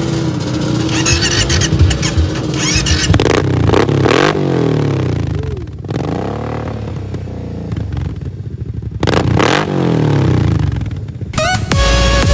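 ATV engine running through a Kawasaki KFX700 dual exhaust, idling and then revved up and back down about three times.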